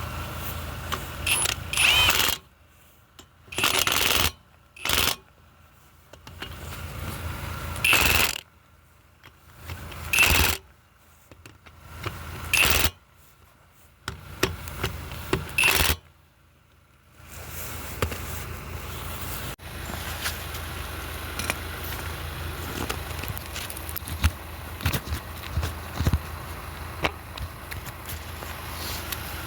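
Impact wrench run in about seven short bursts, typical of lug nuts being spun on or off during a tire change. From about seventeen seconds in, a steady low running hum with scattered clicks takes over.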